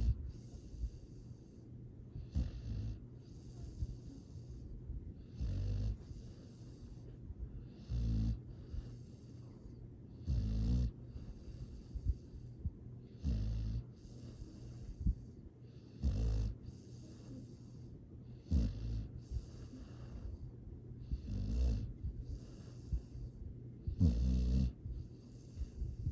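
A sleeping pet snoring in an even rhythm, one rattling snore about every two and a half to three seconds, each with a breathy hiss.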